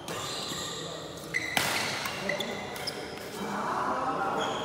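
Badminton rally: rackets striking the shuttlecock with sharp cracks, the loudest about a second and a half in, and shoes squeaking briefly on the court.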